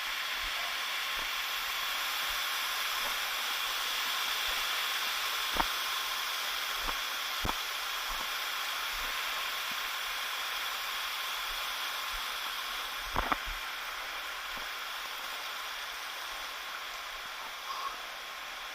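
Steady rush of a waterfall and its stream, with a few sharp knocks, the loudest about five and a half seconds in and another around thirteen seconds in.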